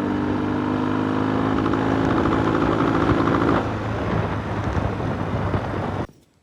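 A Norton motorcycle's engine running under way, steady at first, then easing off about three and a half seconds in. The sound cuts off suddenly near the end.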